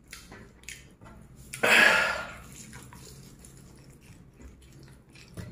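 A man's single sharp, breathy huff about a second and a half in, then faint clicks and soft mouth sounds as he bites into and chews a piece of fried chicken.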